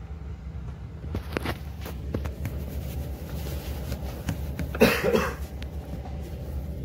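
Steady low drone of a car ferry's engines under way, with a few sharp knocks early on and a short, loud burst of noise about five seconds in.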